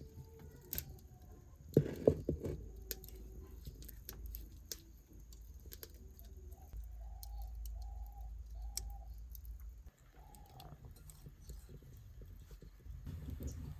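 Wood fire crackling in a clay hearth with scattered sharp pops, and a few loud knocks about two seconds in as the clay cooking pot is set on the fire. In the middle, a chicken clucks five times in short, evenly spaced calls.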